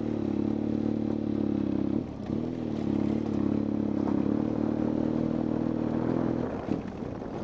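Motorcycle engine idling steadily, its note dipping briefly about two seconds in and dropping away near the end.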